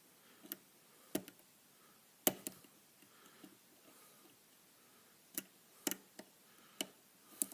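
Lock pick working the pins of a pin-tumbler lock during single-pin picking: scattered light metallic clicks and ticks, about nine of them, irregularly spaced.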